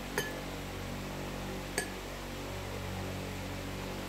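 Two light clinks of a metal fork against a ceramic plate, about a second and a half apart, over a steady low electrical hum.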